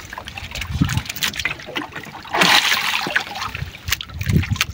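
Sea water splashing and trickling against a small fishing boat, with a louder rush of splashing about halfway through and scattered light knocks and taps.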